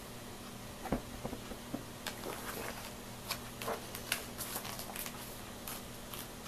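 Paper rustling with short clicks and crinkles as the pages of a picture book are handled and turned, starting about a second in, over a faint steady hum.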